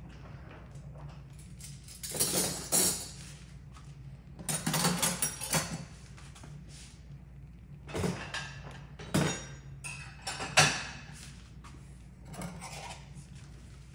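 Dishes clattering and dishwasher racks sliding as dirty dishes are loaded, in irregular bursts of clinks and knocks over a steady low hum.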